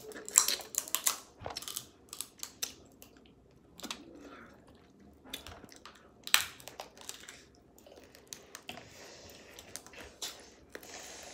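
Close-up eating of crab legs: the shells crack and crunch between the teeth, with sucking and chewing as the meat is pulled out, in irregular sharp clicks that are loudest in the first second or so and again around six seconds in.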